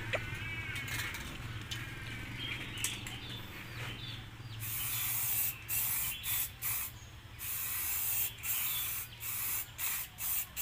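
Aerosol spray-paint can hissing in a series of short bursts, starting about halfway through, as black paint is sprayed onto corrugated metal sheeting.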